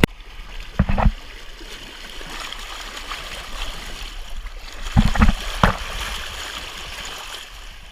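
Lazy river water running and lapping steadily, with sharp knocks close to the microphone about a second in and three more around five to six seconds in.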